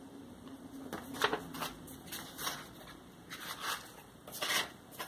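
Sheets of paper rustling and crinkling as loose pages are handled and shuffled, in a run of short rustles.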